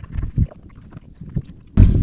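Handling noise in a kayak: a few low knocks and bumps against the hull, with wind buffeting the microphone, and a loud thump near the end.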